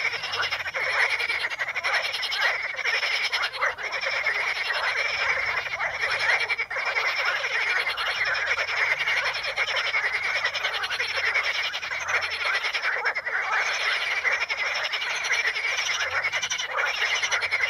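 A dense chorus of many frogs calling at once, their calls overlapping into a continuous, unbroken din.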